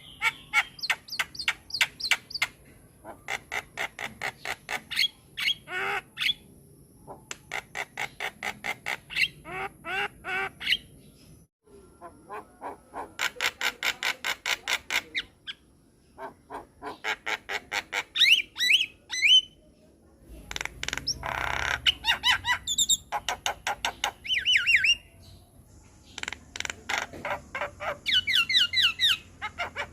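Javan myna (jalak kebo) singing: phrases of rapid, harsh rattling chatter a couple of seconds long, broken by short pauses, with quick whistled notes mixed in past the middle and near the end.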